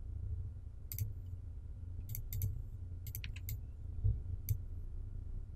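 Computer mouse clicking about eight times at an irregular pace, some clicks in quick pairs, over a low steady hum.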